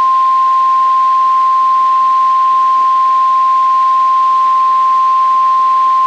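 Emergency alert attention tone, the single steady 1050 Hz warning alarm tone of NOAA Weather Radio, sounding loud and unbroken. It is the signal that a warning broadcast is about to follow, here a severe thunderstorm warning.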